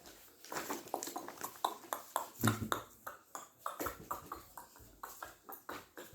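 A rapid, irregular run of small clicks and knocks, like things being handled and set down, loudest about two and a half seconds in.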